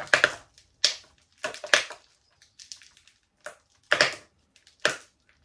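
Gritty potting substrate being crumbled off a houseplant's root ball by hand and dropping into a plastic bowl: several short, irregular crunchy rustles with quiet gaps between.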